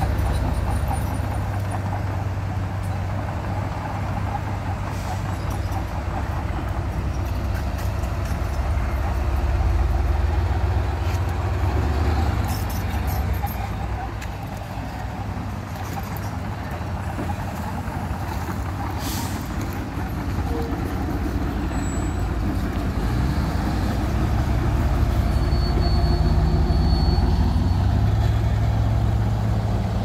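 Heavy diesel engines of a logging truck and a crawler bulldozer running with a steady low rumble that grows louder near the end. A short hiss comes about two thirds of the way through.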